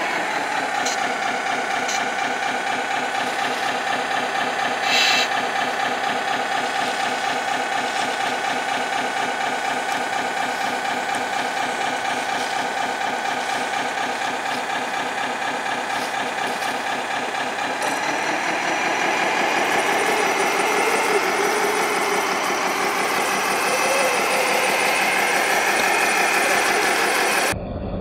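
RC semi truck running with a steady, idling-engine-like hum that pulses fast and evenly; it rises a little in pitch and loudness about 18 seconds in.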